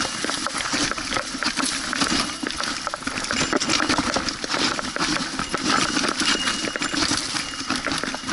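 Mountain bike rolling down a rough forest trail: tyres crunching over dry leaves, roots and stones, with a dense, irregular rattle of the bike jolting over the bumps.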